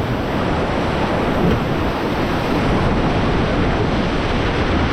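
Steady rush of river water from the Beas River whitewater around the raft, with wind noise on the microphone.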